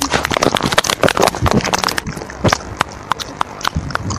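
Rapid, irregular clicks and taps, several a second, with a few louder knocks.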